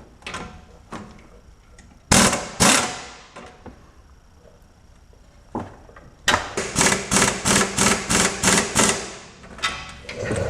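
Power tool, most likely a cordless impact wrench, hammering on a sway bar end-link nut. Two loud bursts come about two seconds in, then an even run of about a dozen bursts, four to five a second, starting around six seconds.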